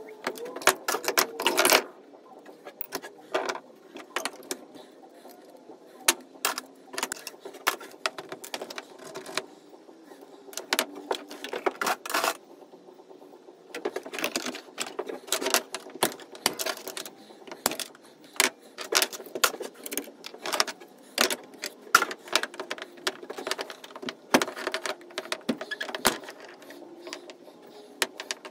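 Hand tools and small brass and copper valve parts clinking and knocking on a wooden workbench as thermostatic expansion valves are taken apart for scrap: irregular sharp metallic clicks and clatter, with a short lull partway through.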